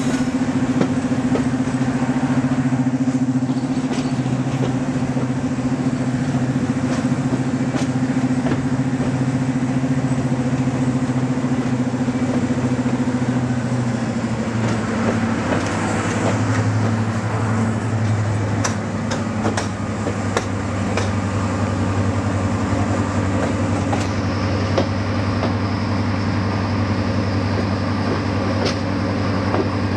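Class 55 Deltic diesel locomotive D9009 running along the line, its twin Napier Deltic engines giving a steady, deep drone whose pitch drops a little about halfway through, with scattered clicks from the wheels on the rails. A faint high squeal joins in near the end.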